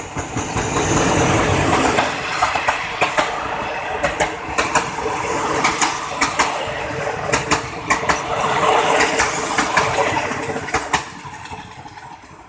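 Passenger train rolling past with its wheels clacking again and again over the rail joints, the sound dying away near the end.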